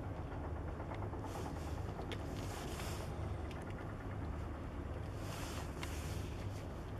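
Steady low rumble of an offshore crew boat catamaran's engines, with two stretches of hissing about a second in and again about five seconds in.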